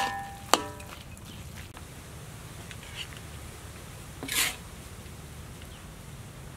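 A metal spatula knocks twice against a metal cooking pan in the first second, each knock ringing briefly. Then a steady low rumble, with one short noisy scrape about four seconds in.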